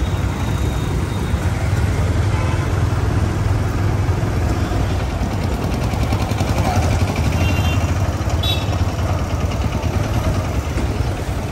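Vehicle on the move in city traffic: a steady low engine and road rumble, with a couple of short horn toots in the second half.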